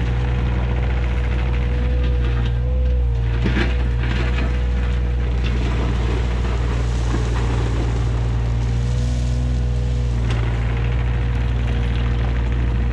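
John Deere 35G mini excavator's diesel engine running steadily, with a steady whine over it and a few short knocks, about three and a half seconds in and again near ten seconds.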